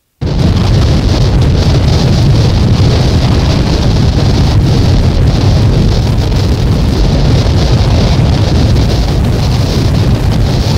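A loud, dense wall of noise from a noise-music cassette track cuts in abruptly just after the start and holds steady: a strong rumble with a hiss above it, and no beat, melody or voice.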